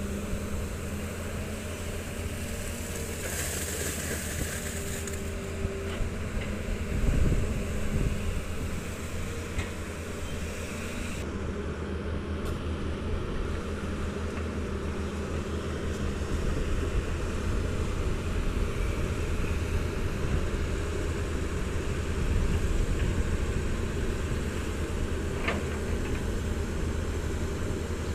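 Volvo EC210B long-reach excavator's diesel engine running steadily while it works, with a dull thump about seven seconds in.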